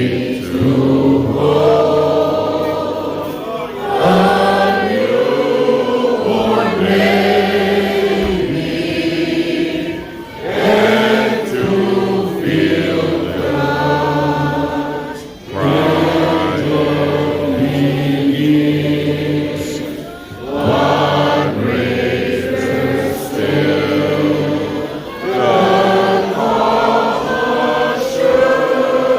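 A church choir singing a hymn, phrase by phrase, with short breaks between lines about every five seconds.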